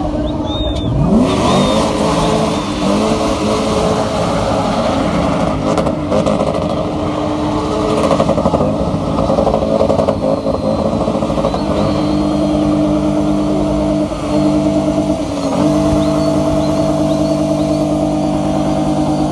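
Car engine revving up about a second in, then held at steady high revs as in a spinning run, with a brief drop in revs about fourteen seconds in.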